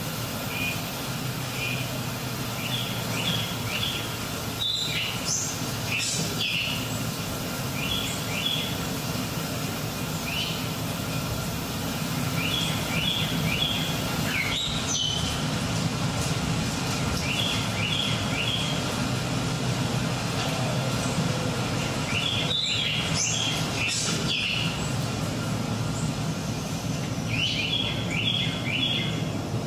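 Forest-ambience soundscape: birds chirping in quick runs of three or four notes that recur every few seconds, with a few louder calls and clicks, over a steady low rumble.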